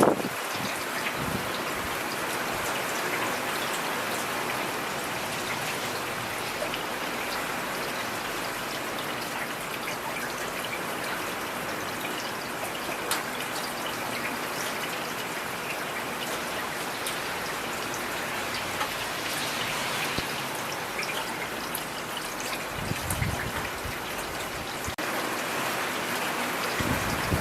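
Steady rain falling, with individual drops ticking through the even hiss. A brief low rumble comes near the end.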